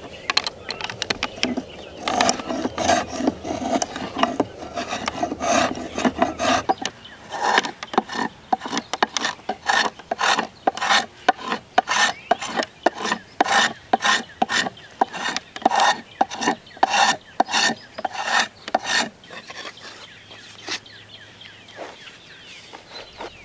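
Steel spokeshave cutting shavings from a wooden hammer handle held in a shaving horse: repeated short scraping strokes, about two a second, that stop near the end.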